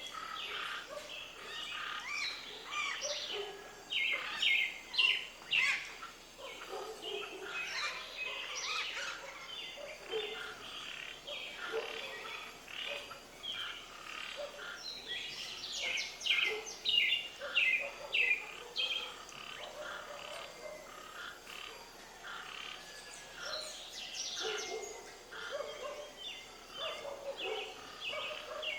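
Many birds chirping and calling at once: a dense chorus of short, overlapping calls.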